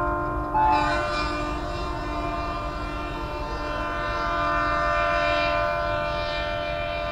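Diesel locomotive horn sounding one long, continuous multi-tone blast, its chord changing about half a second in, over the rumble of the moving train. The locomotive is an Indian Railways ALCO.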